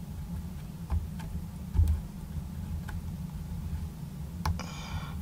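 Soldering iron melting solder into flux on an 18650 battery terminal: a few faint ticks and crackles over a steady low hum, with a dull knock about two seconds in. Near the end comes a short high tone with several overtones, lasting about half a second.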